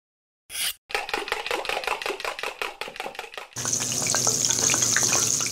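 Kitchen sound effects. A brief whoosh, then rapid, even knife chopping on a board at about eight strokes a second. A little past halfway this changes to a steady sizzle of food frying in a hot pan, with small crackles.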